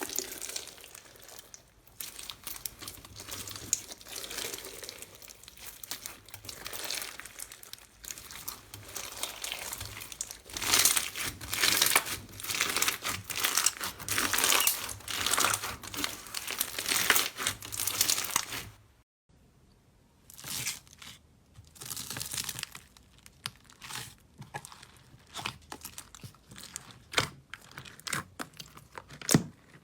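Hands squeezing and pressing slime close to the microphone: a dense run of small crackles and pops. It breaks off briefly a little past halfway, then goes on as sparser clicks.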